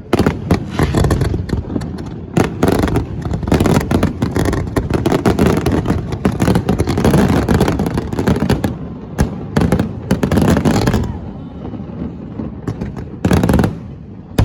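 Fireworks display: rapid, overlapping bangs and crackling bursts, thick for most of the stretch, easing off about eleven seconds in, then one more loud burst near the end.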